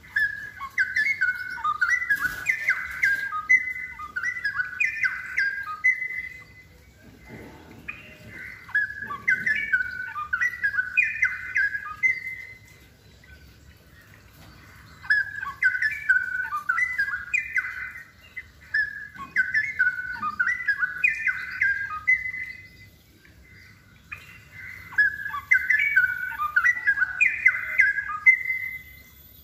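Straw-headed bulbul singing: about five phrases of rapid, up-and-down warbled notes, each lasting a few seconds, with short pauses between them.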